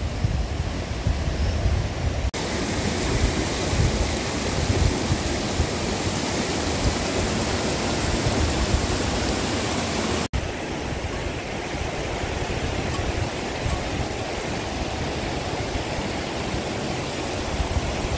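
Steady rushing of a rocky mountain stream. For the first two seconds, wind rumbles on the microphone.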